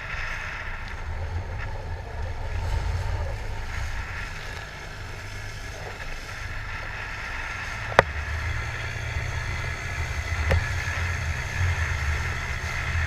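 Small open boat with an outboard motor running at speed through choppy sea: a rough low rumble of wind buffeting the microphone and the engine, with water and spray hissing along the hull. A sharp knock comes about eight seconds in, and a fainter one about two seconds later.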